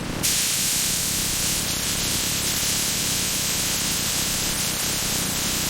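A steady, loud hiss that switches on abruptly about a quarter second in and holds even, over background music.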